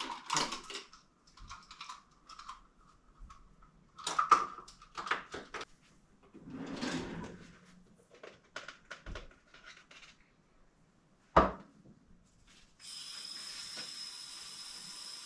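Kitchen clatter of drawers and utensils being handled, with one sharp knock about eleven seconds in, then a steady rush of running tap water at the sink from about thirteen seconds in.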